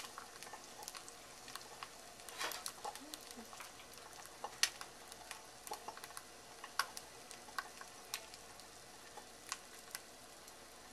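An egg frying in olive oil inside a bell pepper ring in a fry pan: a soft, steady sizzle with irregular sharp pops of spitting oil, the white just starting to set.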